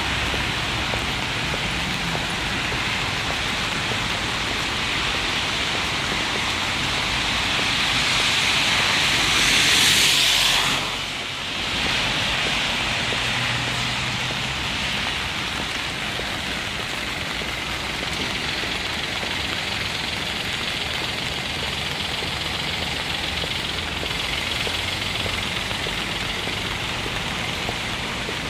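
Steady hiss of rain mixed with the rumble of city traffic. It swells louder about ten seconds in, drops away sharply for a moment, then settles back to a steady level.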